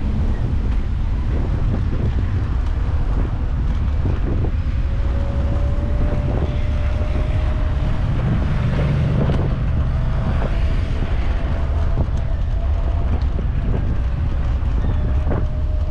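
Wind buffeting the microphone of a camera on a moving electric scooter, with a steady low rumble from the ride over paving. A thin steady whine joins about four seconds in, and there are a few scattered knocks.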